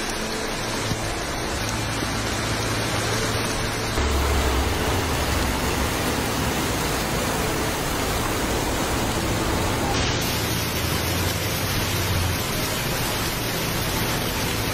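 Steady, dense rush of heavy rain and floodwater running in a street, with a low hum underneath. The noise shifts abruptly twice, about four and ten seconds in.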